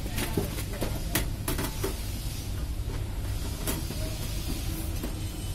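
Steel side panel of a PC tower case being fitted and slid shut by hand: a quick series of light metal knocks and clicks in the first two seconds, one more a little later, over a steady low rumble.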